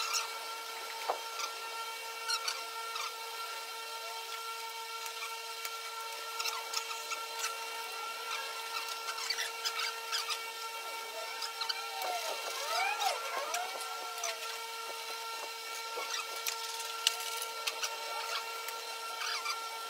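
Scattered clicks, knocks and rubbing of a large plastic truck-cab sun visor being lifted and fitted into place, over a steady hum. A few short squeaks come about two-thirds of the way in.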